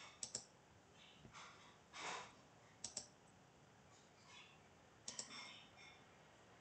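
Faint computer clicks over near silence: three quick double clicks, about two to three seconds apart, with a few softer rustles between them.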